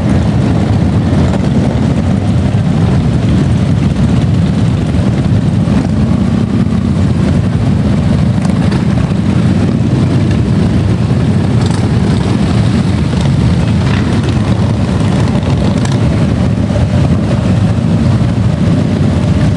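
A line of motorcycles, large touring cruisers and a Honda among them, running at low speed as they ride slowly past one after another: a steady, loud, low engine sound.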